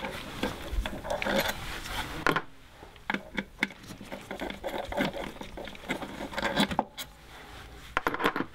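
Hand tool clicking and clinking against metal, in irregular short clicks and taps, as the throttle body's external-Torx mounting screws are undone.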